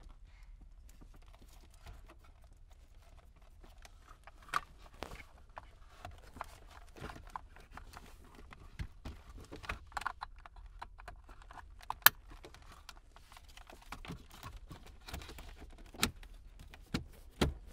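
Plastic clicks, knocks and rattles of a 1998–2002 Honda Accord's climate control unit and dash trim bezel being handled, its wiring plugs pushed back in and the panel pressed into the dash. Scattered irregular clicks, the loudest a sharp snap about twelve seconds in.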